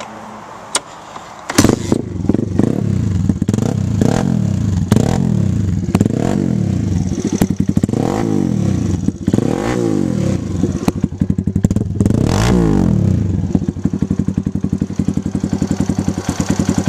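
Pit bike's small single-cylinder four-stroke engine, breathing through a freshly repacked BBR silencer, starting about a second and a half in. It is revved several times, the pitch rising and falling, then settles to a steady idle.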